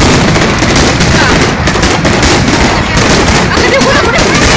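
Fireworks going off in a rapid, continuous crackle of many small bangs.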